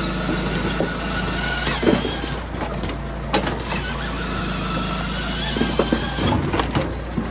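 Palax KS 35 Ergo firewood processor running: a steady low engine drone with a wavering whine, broken by scattered sharp knocks and clunks as the wood is worked.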